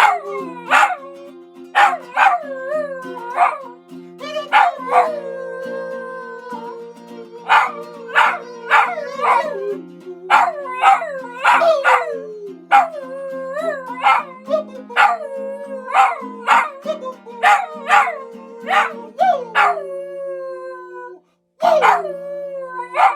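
A dog howling and yipping along to music: many short calls that slide down in pitch, over steady held chords. The sound breaks off briefly about 21 seconds in, then the calls resume.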